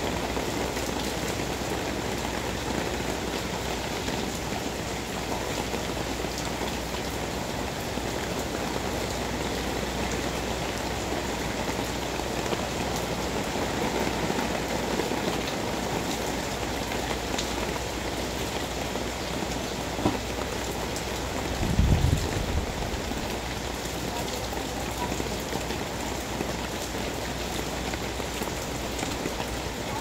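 Steady typhoon rain falling on a wet concrete yard and foliage, with a single click and then a short low rumble about two-thirds of the way through.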